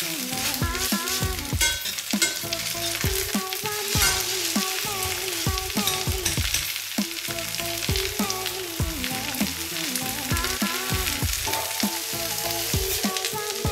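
Batter-coated napa cabbage leaves sizzling and crackling in oil in a stainless steel frying pan, with some scraping of metal tongs as the leaves are turned and lifted. Background music with a melody and a bass line plays over it.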